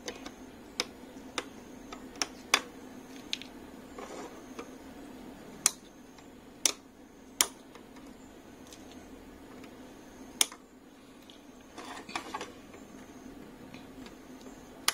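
Side cutters snipping the trimmed leads of components on a circuit board after soldering: about ten sharp, irregularly spaced clicks. Soft handling rustle can be heard in between, over a faint steady hum.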